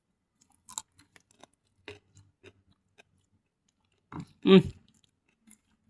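Small mouth and lip clicks of someone tasting freshly made sambal, then a brief vocal sound about four and a half seconds in.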